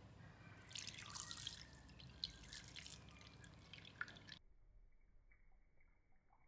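Faint pouring and dripping as soap nut enzyme liquid runs from a plastic jar through a fine stainless steel mesh strainer into a bowl, starting about a second in. After about four seconds it drops to a quieter, duller trickle.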